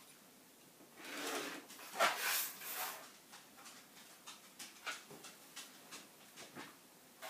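Handling noises while trimming a quilt: about two seconds of rustling and scraping as the fabric and a clear acrylic ruler are shifted across a cutting mat, then a run of light, irregular taps and clicks.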